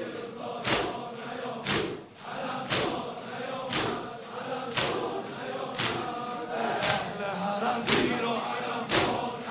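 A crowd of mourners chanting a noha dirge together, keeping time with sharp chest-beating strikes about once a second.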